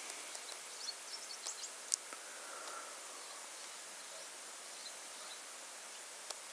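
Faint bush ambience: a steady high hiss with scattered small bird chirps and insect ticks.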